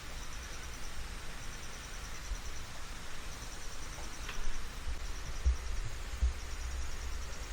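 Insects trilling outdoors in repeated high pulsed bursts of about a second each, over a steady hiss. A few low thumps in the second half, the loudest moments, sound like wind buffeting or a knock on the microphone.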